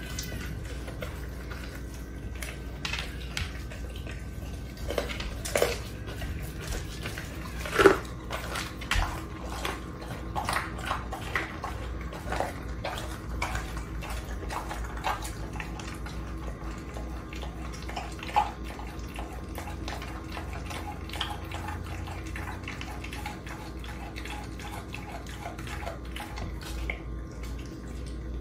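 A pit bull-type dog chewing raw chicken: a run of wet smacking and crunching bites, loudest about eight seconds in and thinning to occasional chews after about twenty seconds, over a steady low hum.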